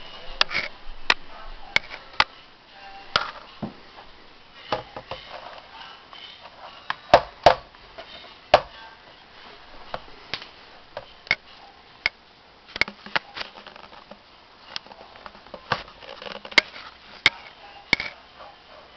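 Scattered sharp clicks and knocks of handling as a small Acer netbook is carried, set down and its lid opened.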